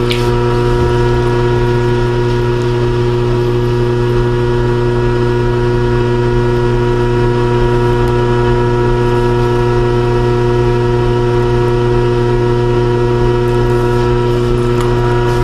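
Electric potter's wheel motor running at a steady speed, a constant hum that does not change.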